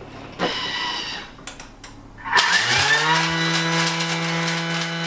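Thermomix motor starting up to speed 10 about two and a half seconds in, its pitch rising quickly and then holding a steady whine as it grinds gelatin sheets into a fine powder.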